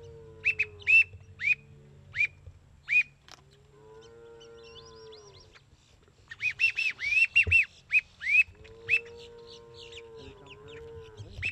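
Black-bellied whistling ducks calling: short, high, squealing whistles that rise and fall. They come in quick runs about a second in and again in a busier burst past the middle. Three quieter, longer, lower drawn-out sounds come under them.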